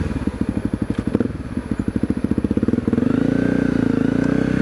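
Motorcycle engine running at low speed while riding slowly, its exhaust coming as a quick, even beat of pulses that smooths into a steadier run about three seconds in.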